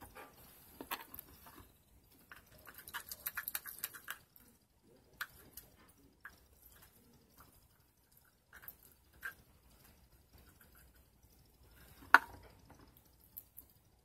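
Under-activated pink foam-bead slime being handled with fingers and a stirring stick: scattered sticky clicks and crackles, with a quick run of them about three seconds in and one sharp click near the end.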